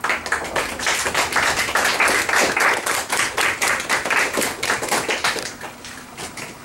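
A small group of students applauding, their separate hand claps clearly distinct. The clapping starts suddenly and thins out near the end.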